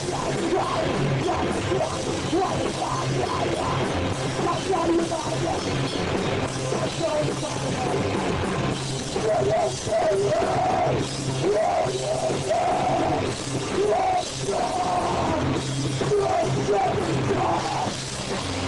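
Live rock band playing loud, with electric guitars and drums.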